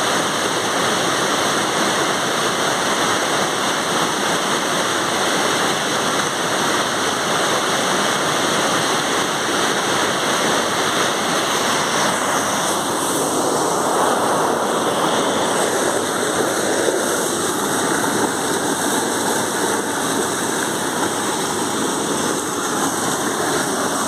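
Small waterfall and stream rushing over rocks: a steady, even rush of water.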